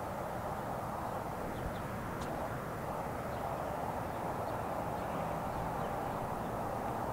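Steady outdoor background noise: a low rumble and hiss that holds level throughout, with no distinct events.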